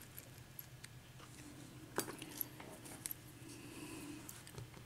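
A few faint, sharp metallic clicks of a lock cylinder's plug and pins being handled, about two, two and a half and three seconds in.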